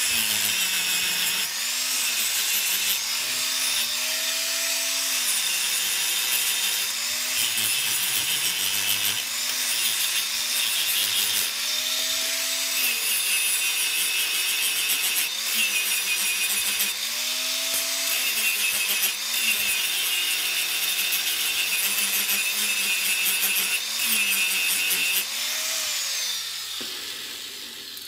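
Electric angle grinder cutting through steel rod with a cut-off disc: a harsh high grinding hiss over the motor's whine, which rises and falls again and again as the disc bites and eases. Near the end the grinder is switched off and winds down.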